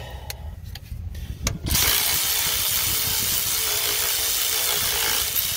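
A few light knocks of tool handling, then about a second and a half in a Milwaukee 3/8-inch cordless ratchet starts running steadily, spinning a bolt out of an alternator mounting bracket.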